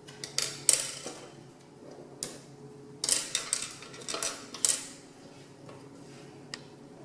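Toy coins clinking and clattering as handfuls are dropped into a toy cash register drawer, in several short bursts.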